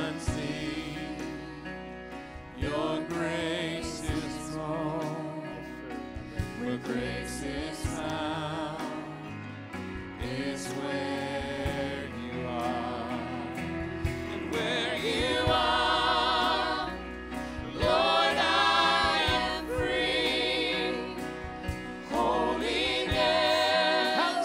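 Live church worship band and singers performing a slow worship song, with several voices singing the melody over band accompaniment. It grows fuller and louder about halfway through.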